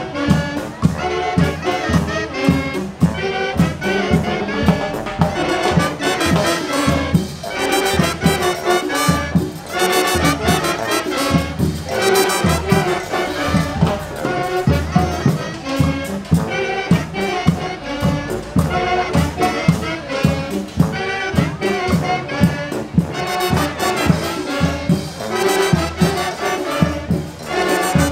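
Upbeat music with brass horns over a steady beat.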